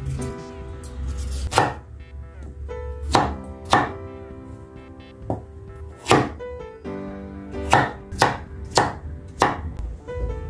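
Large kitchen knife cutting a peeled potato on a wooden cutting board: about eight sharp knocks at irregular spacing, over soft background music.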